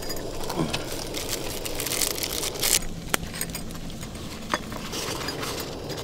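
Wood fire crackling and popping, with paper rustling and light clinks as a paper coffee filter is fitted into a wire pour-over dripper.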